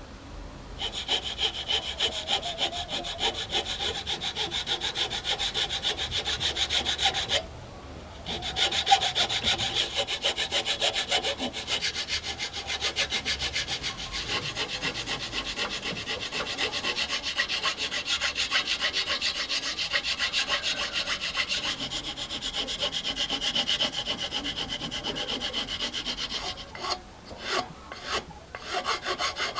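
Hand file rasping back and forth across a wooden block in quick, even strokes. There is a short pause about seven seconds in, and a few slower, separate strokes near the end.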